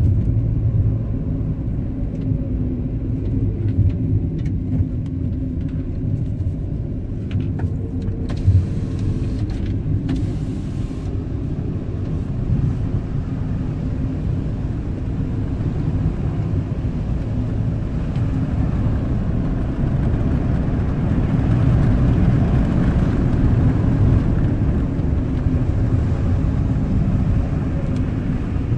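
Car being driven on a mountain road, heard from inside the cabin: steady engine and road rumble that grows somewhat louder about two-thirds of the way through, with a single thump about eight seconds in.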